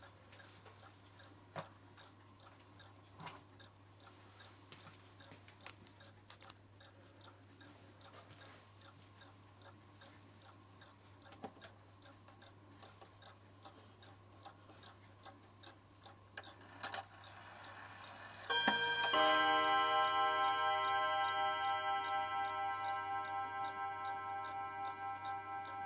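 Mauthe table clock ticking steadily. About two-thirds of the way in, after a few louder clicks, its hammers strike the gong rods in turn, and the chime's tones ring on and slowly fade.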